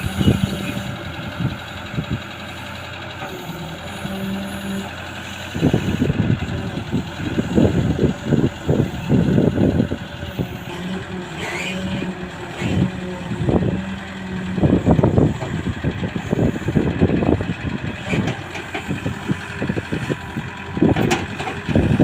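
Excavator's diesel engine running steadily. From about six seconds in, irregular low thumps and clunks come and go over it.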